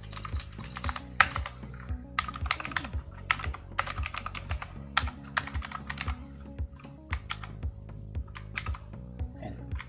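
Typing on a computer keyboard: quick runs of keystroke clicks with short pauses, thinning out for a couple of seconds past the middle. Quiet background music with steady held notes underneath.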